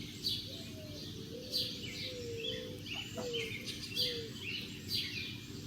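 Small birds chirping: short, high, falling chirps repeated about once a second, with a few faint low gliding notes beneath.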